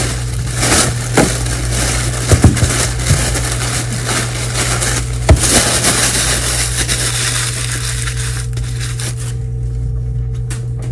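White packing wrap crumpled and rustled by hand as a jewellery package is unwrapped, with a few sharp clicks about two and a half and five seconds in. The crinkling eases off over the last few seconds, leaving a steady low hum.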